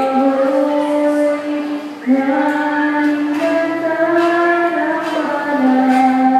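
Slow music: a single sung melody of long held notes moving step by step, with a brief break about two seconds in.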